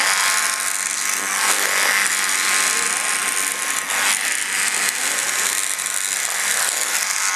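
Small battery-powered toy robots, including a Hexbug Bobble Bot, buzzing and whirring steadily as their little electric motors drive them across a hard floor, with a few sharp clicks.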